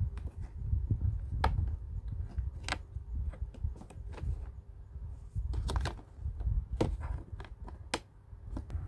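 Sharp, irregular plastic clicks and taps as a small white plastic peg rack from a toy medkit playset is handled and snapped into place in the case's plastic lid, over a low handling rumble.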